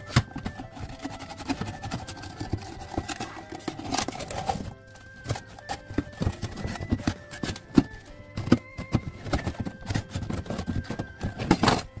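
Background music: a melody of held notes stepping in pitch over busy clicking, clip-clop-like percussion.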